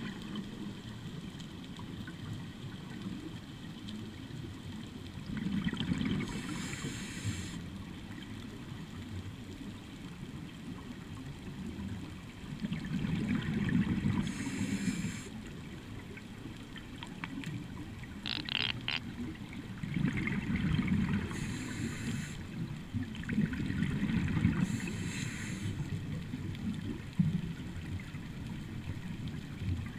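Scuba diver breathing through a regulator underwater: slow cycles of exhaled bubbles gurgling out, each with a high hiss, coming in several waves a few seconds apart.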